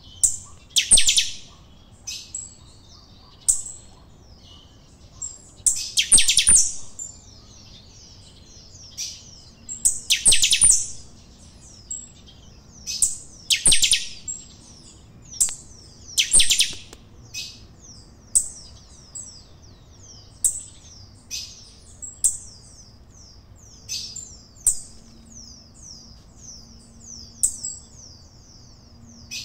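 Caged saffron finch (canário-da-terra) singing its chanchão song: loud, high song phrases every few seconds, then a long, softer run of quick falling notes repeated several times a second.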